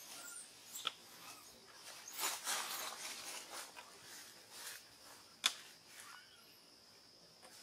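Soft rustling and a few sharp clicks as monkeys shift about in a leafy tree, the loudest click about five and a half seconds in. A faint steady high tone sits underneath in the second half.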